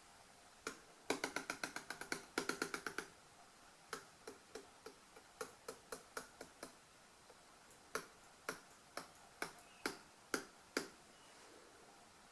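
Sharp hard clicks or taps: a fast run of about a dozen near the start, then single taps spaced a few to the second, stopping shortly before the end.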